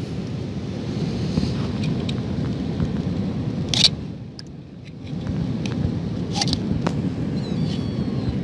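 A steel knife blade scraping and knocking against rock and seaweed-crusted growth in a tide pool: a sharp scrape just before the middle, the loudest sound, and a few lighter ones later. Under it, a steady low rumble of wind buffeting the microphone, easing for about a second near the middle.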